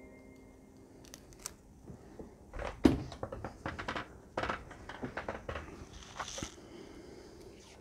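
Kapton tape being peeled off its roll and torn: an irregular run of crinkling rips and small clicks, the sharpest about three seconds in.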